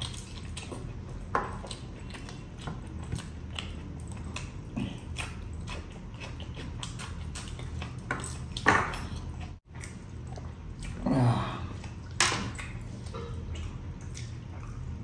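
Close-miked eating sounds of a person eating biryani, curry and raw salad with his hand: wet chewing, lip smacks and small mouth clicks, with a few louder smacks about halfway through, over a steady low hum.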